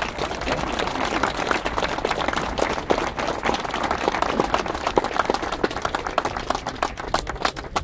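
A group of people applauding, many hands clapping irregularly at once.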